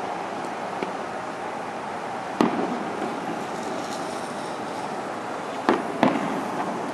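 Distant Fourth of July fireworks exploding: a sharp bang about two and a half seconds in, then two more close together near the end, over the steady hiss and hum of busy street traffic below.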